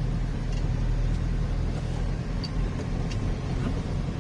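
Steady motor-vehicle engine and road rumble, low and even, with no sharp events.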